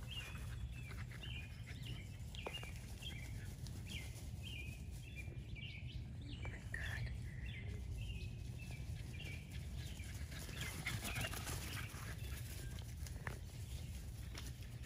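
Outdoor ambience: birds chirping in short, repeated calls over a steady low rumble, with a few faint clicks.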